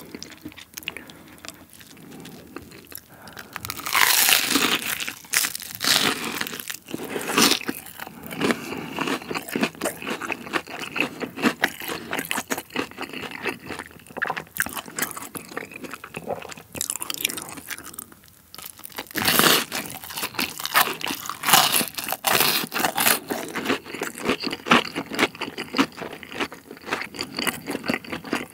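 Close-miked eating: crunchy bites and chewing of spicy mala xiang guo stir-fry, including a shrimp. There are many short crunches, with louder clusters of bites a few seconds in and again past the middle.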